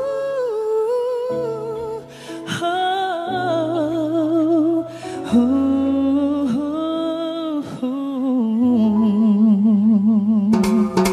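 Live band music: a slow melodic passage of long, wavering held notes over steady backing chords. About ten and a half seconds in, drums strike up as a faster song begins.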